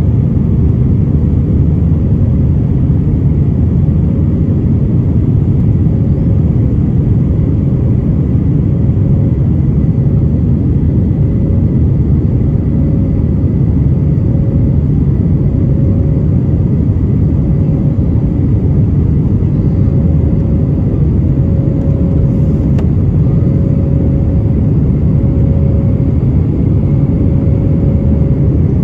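Airbus A320-200 jet engines and airflow heard from inside the passenger cabin during the climb after takeoff: a loud, steady low rumble. A faint hum above it swells and fades every second or so.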